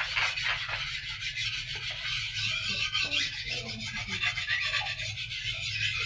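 A kitchen knife being sharpened, its blade rubbed back and forth in quick, even rasping strokes.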